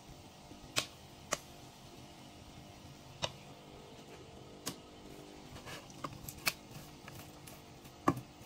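Scattered sharp clicks and knocks as a wooden spatula stirs chocolate-coated popcorn in a non-stick pot, tapping the pot's side and base, with the loudest knock near the end.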